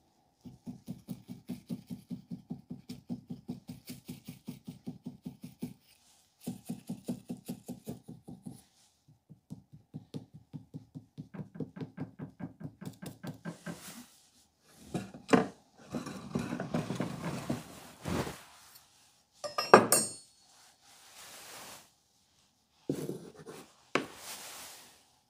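A wooden modelling stick tapping a clay figure in quick, even strokes, about five a second, in three runs with short pauses. From about fifteen seconds in come louder, irregular knocks and handling noises, the loudest a sharp knock near twenty seconds.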